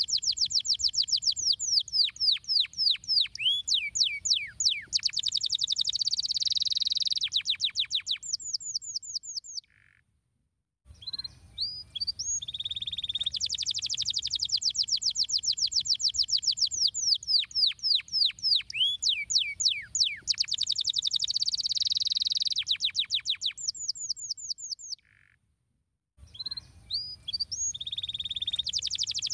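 Domestic canary singing: long rolling trills of rapid, repeated downward-sweeping notes that change speed from phrase to phrase. The song breaks off twice for about a second.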